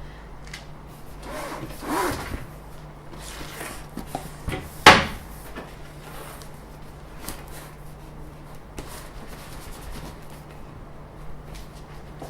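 Cardboard box and packing being handled and opened: rubbing, scraping and rustling, with one sharp knock about five seconds in.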